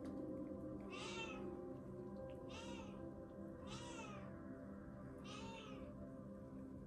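A kitten mewing four times, short high-pitched mews spaced a second or more apart.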